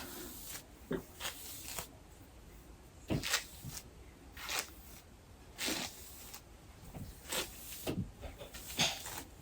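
Camera handling noise: scattered, irregular soft rustles and bumps as the recording phone or camera is moved and set up.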